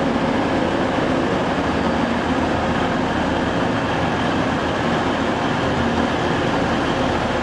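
Class 185 diesel multiple units' engines running with a steady drone as a train moves slowly along the platform.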